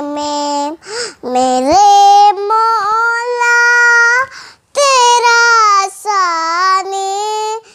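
A young girl singing a naat, an Urdu devotional song, unaccompanied, in long held notes that slide between pitches, with short pauses for breath between phrases.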